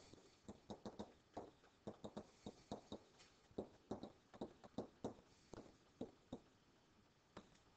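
Digital pen tapping and clicking on a writing surface as words are handwritten: faint, irregular clicks, several a second, thinning out near the end.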